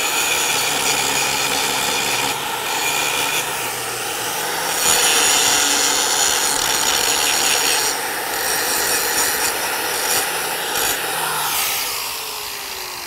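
Angle grinder with a grinding disc grinding steel tack welds flat on steel plate: a steady high whine with grinding hiss. Near the end it comes off the work and the motor winds down with a falling whine.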